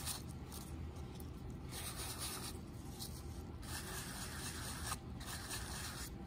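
A ball of tarlatan rubbed in repeated light strokes across an inked acrylic drypoint plate, each stroke a soft scratchy rub lasting about a second. This is the tarlatan wipe, which pushes the ink into the drypoint lines while it lifts the excess from the rest of the plate.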